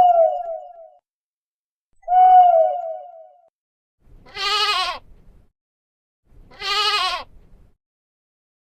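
A sheep bleating: two shorter calls that fall in pitch, then two longer bleats with a wavering, quavering pitch.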